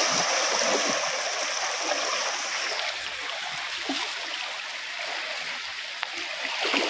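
Fast, swollen river water rushing and churning around waders, a steady hiss that eases off about three seconds in.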